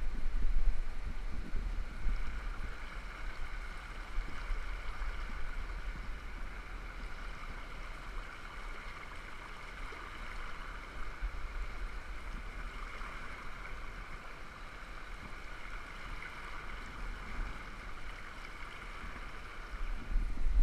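River rapids rushing steadily beneath the highline, with wind rumbling on the microphone, strongest in the first second or so.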